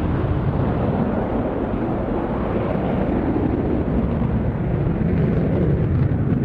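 Twin General Electric F110 turbofan engines of an F-14B Tomcat fighter in flight: a loud, steady jet rumble.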